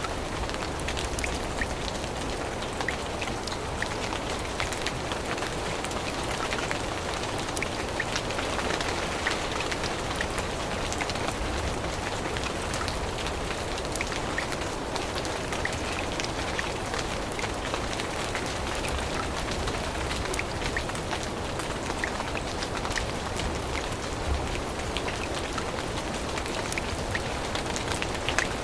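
Steady rain falling on forest leaves: an even hiss dotted with many small, sharp drop ticks.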